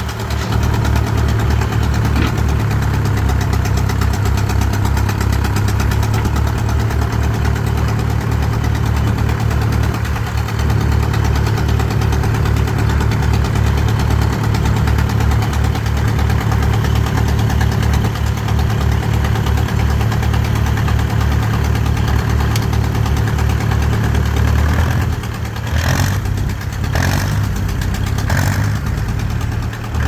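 John Deere 1010 industrial tractor's four-cylinder engine running steadily at idle, with an even low pulse. A few short sharp noises come near the end.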